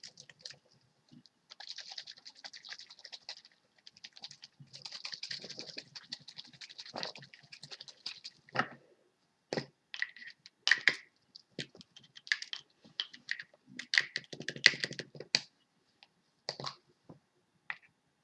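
Irregular tapping, clicking and scratching as makeup products are handled, like fingernails on a plastic cosmetic bottle.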